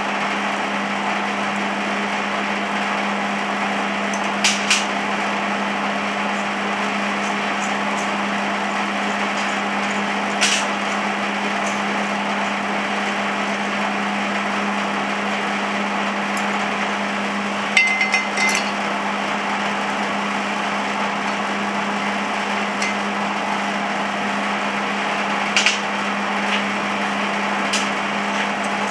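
A few sharp metal clinks of steel bolts, nuts and an eye bolt being handled and fitted into a steel press attachment on a metal workbench, some single and some in quick clusters. Underneath runs a steady low hum with an even hiss.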